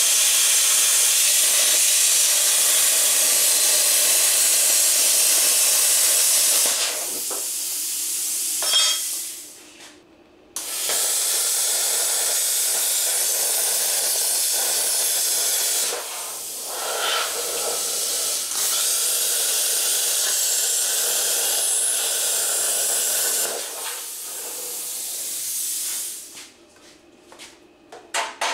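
Handheld plasma cutter cutting steel: a loud, steady hiss of arc and compressed air. The hiss stops briefly about a third of the way in, then runs again until near the end, with a quieter air hiss after each pass. A few metal clinks follow at the very end.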